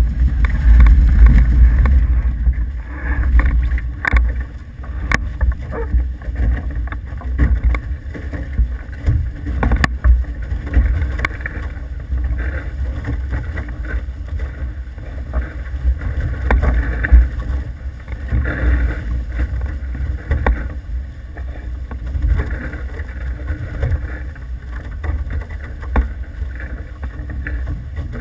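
Wind buffeting the microphone as a low, gusting rumble, with water rushing and splashing past the hulls of an F18 catamaran under sail.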